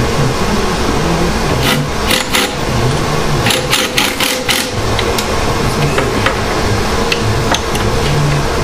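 18-volt cordless drill/driver run in short bursts, two clusters of them about two and four seconds in, over a steady background hum.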